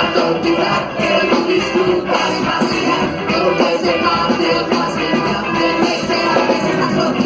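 Ska-rock band music: a full band with electric guitar and drum kit playing on a steady beat.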